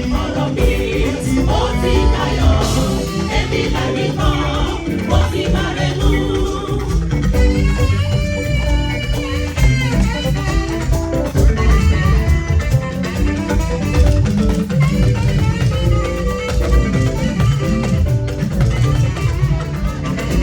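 Live band music with guitar and drum kit playing a steady dance beat, with no words sung.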